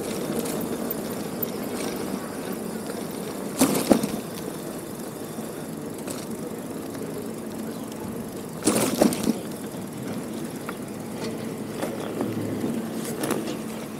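Riding noise from a moving bicycle: a steady rumble, broken by two short, loud rattles about four and nine seconds in.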